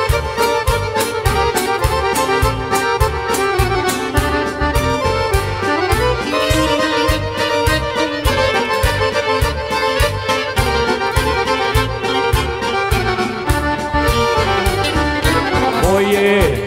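A live band plays an instrumental break with no singing: a melody on keyboards over a steady drum beat and bass. Near the end a violin comes in, playing with vibrato.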